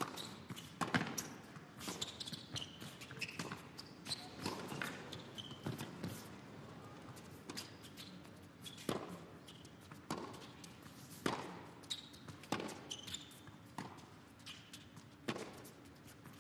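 A tennis ball being hit back and forth in a rally, with a sharp racket strike roughly every second and the ball bouncing on the court between strikes.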